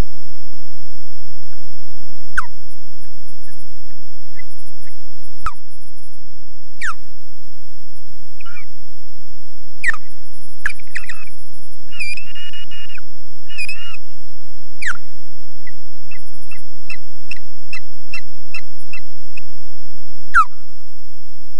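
Osprey alarm calls given while defending the nest: sharp whistles sliding downward every few seconds, a harsher wavering call about halfway through, and then a quick run of short chirps at about two to three a second. A steady high whine and low hum from the camera feed run underneath.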